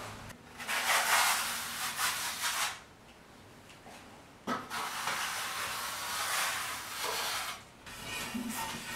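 A notched trowel scraping ready-mixed tile adhesive across a plastered wall, in two long spells of rough scraping with a short pause between.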